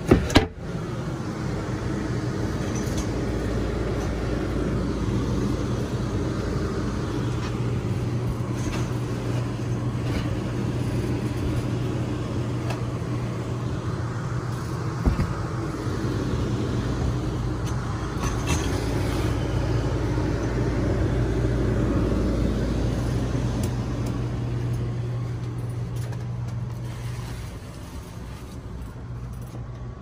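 A plywood seat lid knocks shut just after the start. Under it runs a steady low hum and rumble that eases off near the end, with a small click about halfway through.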